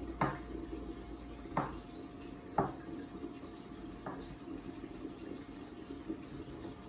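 Chef's knife slicing mushrooms on a wooden cutting board: four sharp knocks of the blade on the board, a second or so apart, over the first four seconds, then only a faint steady hum.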